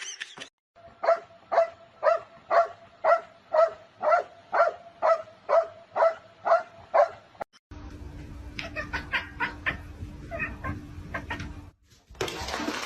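A dog barking over and over at an even pace, about two barks a second, for about six seconds. After a cut, fainter and quicker short barks sound over a low hum.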